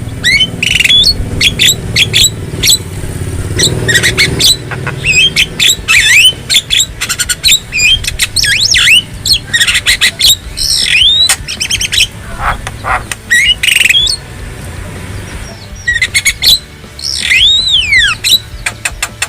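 Javan myna (jalak kebo) calling: a fast, varied jumble of harsh squawks, short whistles and clicking notes, with a brief lull and then a few long downward-sweeping whistles near the end.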